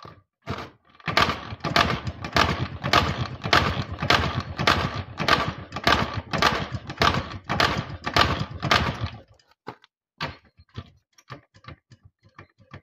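Jawa 350 two-stroke twin being kicked over without catching: a run of rhythmic clattering pulses, about three or four a second, for some eight seconds, then a few scattered clicks.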